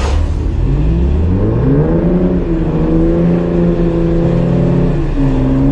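Jeep engine revving up over a second or so, then held at high revs under load as it tows a stuck van on a rope; the revs dip briefly near the end and pick up again. A short knock at the very start.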